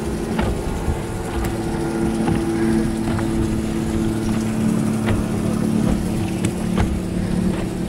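Boat outboard motor running steadily, a held two-tone drone over low rumble, with wind noise and a few sharp knocks.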